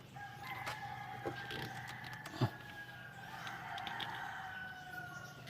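Roosters crowing, long held calls that overlap and sag slightly in pitch. A few sharp clicks are heard, the loudest about two and a half seconds in.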